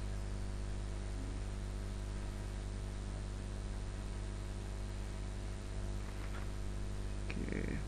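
Steady electrical mains hum with a faint hiss, picked up by the recording microphone. There is a faint click near the end.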